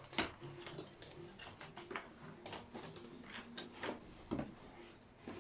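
Unpacking noise: scattered clicks, knocks and rustles as a soldering station and its tangled cable are taken out of the box, with a few sharper knocks about midway and near the end.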